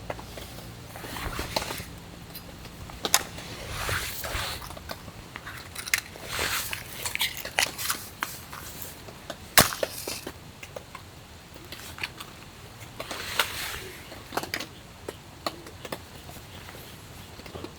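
Rustling and handling noises, with scattered sharp clicks and knocks; the two loudest knocks come about three and ten seconds in.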